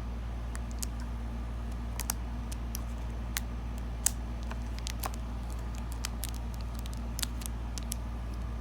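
Scattered light clicks and ticks of scissors and a plastic DVD case being handled while cutting into the packaging seal, over a steady low hum.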